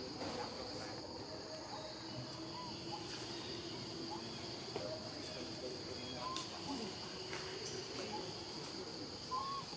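A steady, high-pitched chorus of insects droning without a break, with a few faint short chirps scattered over it.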